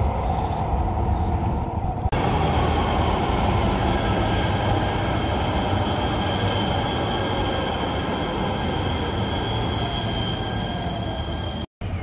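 Metro Blue Line light-rail train running along the elevated track overhead: a steady rumble with a high, even whine over most of it. The sound breaks off abruptly for a moment near the end.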